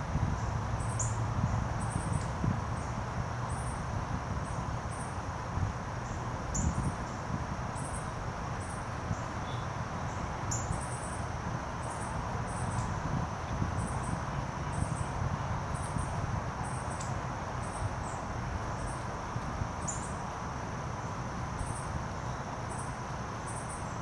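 Outdoor woodland ambience: faint, high insect chirps repeating steadily over a steady high drone, with a low rumble underneath and a few sharp ticks.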